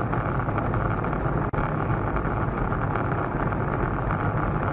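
Steady road and engine rumble of a moving car, recorded from inside the car by a dashcam, with no distinct impact. The sound cuts out for an instant about a second and a half in.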